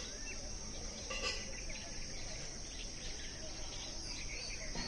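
Steady high-pitched insect trilling, with scattered short bird chirps over it.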